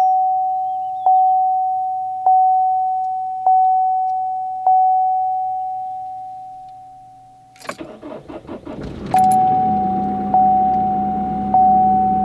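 A vehicle's dashboard warning chime dings five times, about one ding every 1.2 seconds. About eight seconds in, the starter cranks and the engine catches and settles into a steady idle, and the chime starts dinging again over it.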